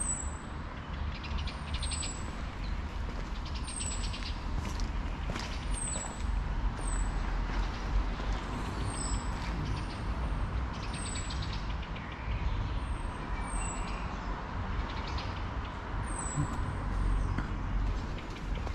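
City street ambience: a steady low rumble of traffic, with short high-pitched falling chirps recurring every second or two.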